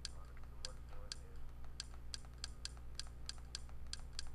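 A rapid, irregular string of sharp clicks, about three or four a second, from scrolling through an on-screen menu, over a steady low hum.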